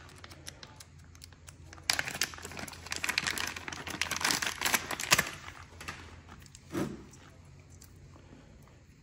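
Clear plastic packaging bag crinkling and rustling as the dual-battery balancer is pulled out of it. The crinkling is loudest from about two to five seconds in, with one soft bump a little later.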